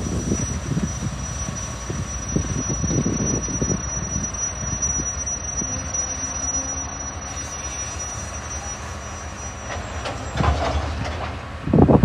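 TasRail TR class diesel-electric locomotives hauling a freight train slowly into the station, their engines running with a low rumble and rattle. A thin, high, steady squeal runs over most of it.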